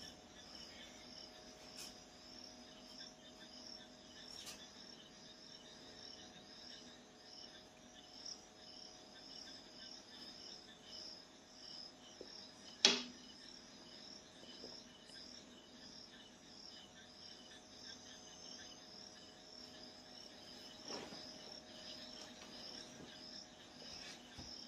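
Crickets chirping in a steady, even pulse, about three chirps a second. One sharp click or knock stands out about thirteen seconds in.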